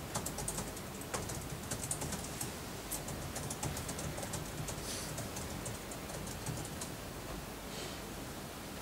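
A run of light, quick clicks and taps, dense for the first few seconds and then thinning out, with a couple of soft rustles.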